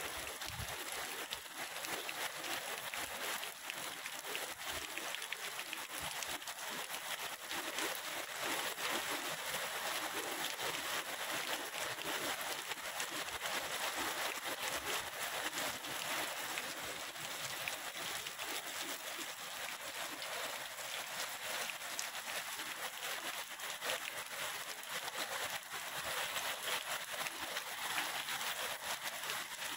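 Steady rain falling on water and grass, an even patter.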